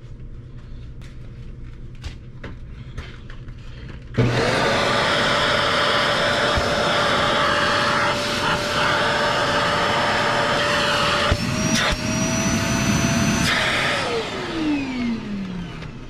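Kenmore Progressive 21614 canister vacuum's suction motor on its first test run after reassembly. After a few handling clicks it switches on about four seconds in and runs steadily with a whine, its pitch rising a little about 11 seconds in. It is switched off about 14 seconds in and winds down in a falling whine.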